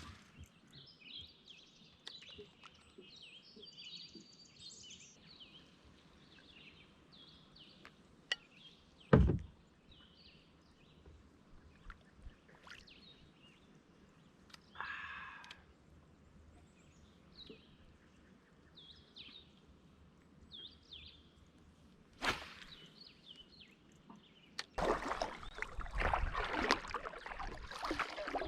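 Small birds singing faintly in the background over a quiet pond, broken by a few sharp knocks on the kayak and one loud low thump about nine seconds in. Near the end the kayak paddle starts moving water, with steady splashing and swishing.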